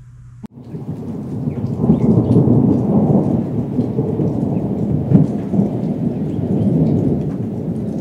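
A loud, low rushing rumble like thunder and rain, with faint patter above it, used as the sound effect for an animated title card. It starts suddenly about half a second in, swells over the next second, then holds and eases slightly toward the end.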